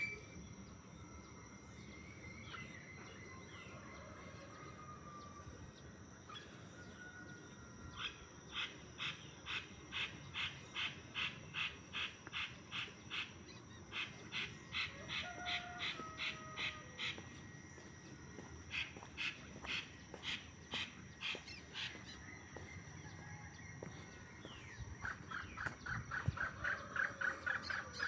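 Birds calling at dawn in tropical forest. One bird gives long runs of rapidly repeated sharp notes, about three or four a second, over scattered shorter whistled calls, with a steady high whine throughout.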